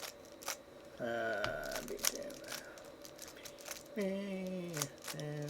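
3x3 Rubik's cube being turned by hand while scrambled: scattered sharp plastic clicks of the layers snapping round, with a man murmuring a couple of times.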